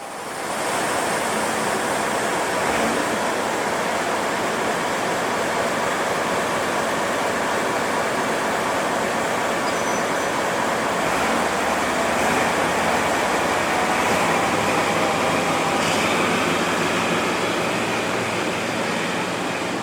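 Steady running noise of a moving train heard from inside a locomotive-hauled passenger coach: an even rush of wheels on rails and air.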